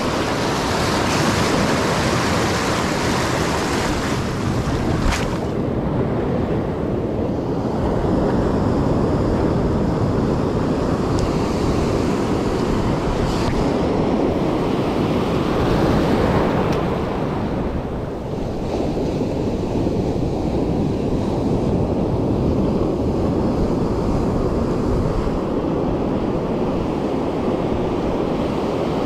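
Ocean surf breaking and washing up the beach in a continuous rushing wash that swells and ebbs, with wind buffeting the microphone. A single sharp click comes about five seconds in.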